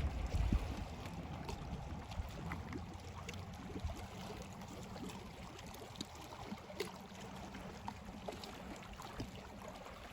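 Outdoor lake ambience: a steady low rumble with water sounds and scattered small clicks, and a few louder knocks in the first second.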